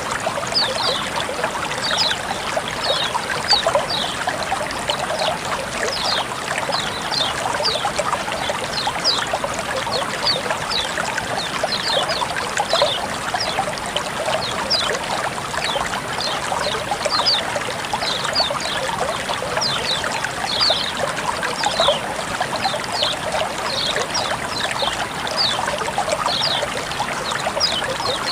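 Water trickling and splashing in a steady flow, with many short, high plinks scattered irregularly throughout.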